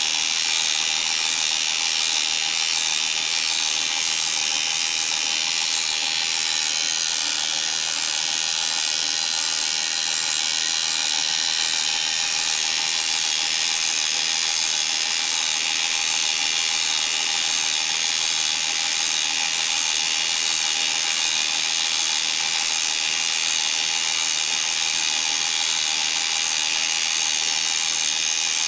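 SJ-201 electric boat winch running under power, its motor and gears turning the wire-rope drum: a steady mechanical whir with a constant whine.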